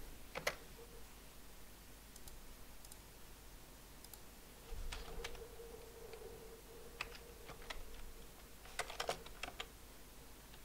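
Computer keyboard keystrokes, typed slowly and sparsely: a single key near the start, a few scattered presses in the middle and a quick run of several keys near the end.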